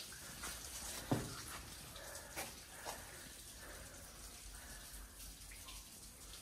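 Water dripping in a limestone cave: faint scattered drips and taps, with one louder knock about a second in.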